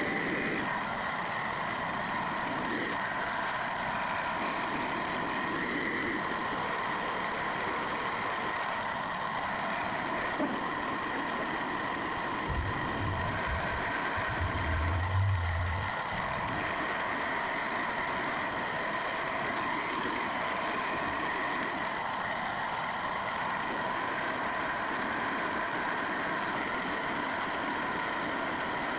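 Machine tool running steadily while machining a sprocket's bore to fit a 17 mm motor shaft, a constant hum with a steady whine over it. A few low thuds come between about twelve and sixteen seconds in.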